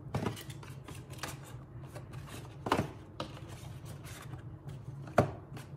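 A mini tripod being slid out of its cardboard box: rustling and scraping of the packaging with a few sharp knocks, the loudest about two and a half seconds in and again near the end, over a low steady hum.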